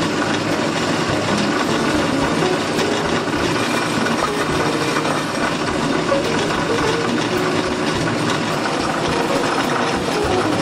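Vertical band saw running and cutting steadily through an aluminium Harley-Davidson Sportster cam cover, a continuous even machine noise with the blade working through the metal.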